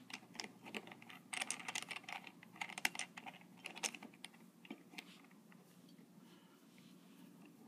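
3D-printed plastic puzzle pieces clicking and clacking as they are handled and pressed into place in a partly built cube, in irregular clusters of sharp clicks that thin out after about five seconds.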